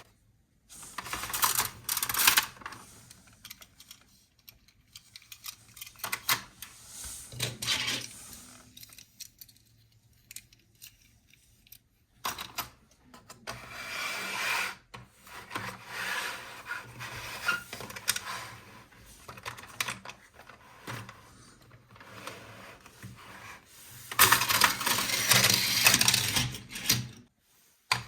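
Plastic toys and their packaging being handled: scattered clicks, rattles and rubbing between short quiet pauses, with a longer stretch of loud scraping and rustling near the end.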